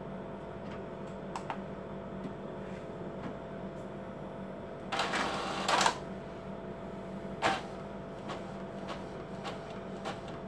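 Epson L4160 ink-tank printer working through a mechanical cycle: a steady hum with scattered clicks. A louder rasping whirr of the mechanism comes about five seconds in, and a shorter one comes about a second and a half later.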